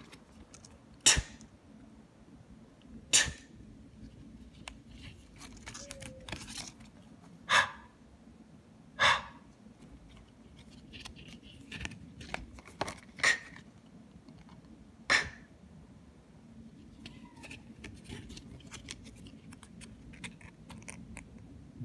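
Laminated paper cards on a metal binder ring being flipped over one at a time. Each turn gives a short, sharp plastic flap or click, about eight of them spaced a second or two apart.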